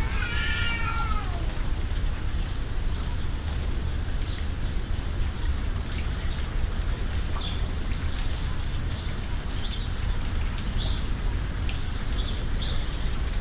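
A cat's yowl falling in pitch over about the first second and a half, then steady rain with scattered raindrop ticks and a continuous low rumble.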